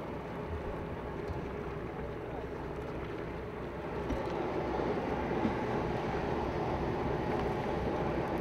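Steady on-deck sound of a sportfishing boat at sea: the engine's drone mixed with water noise, growing a little louder about four seconds in.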